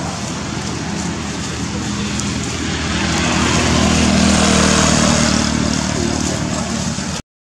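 A motor vehicle's engine running steadily. It grows louder to a peak about halfway through, eases off again, and cuts off abruptly near the end.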